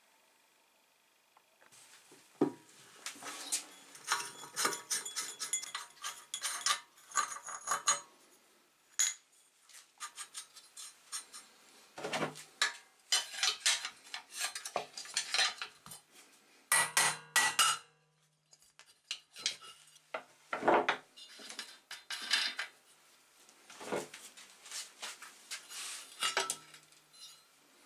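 Irregular metallic clinks and clanks of a hand tool and parts against a Briggs & Stratton Quantum mower engine as its flywheel is pried up and lifted off the crankshaft. Some strikes ring briefly; the clatter starts about two seconds in.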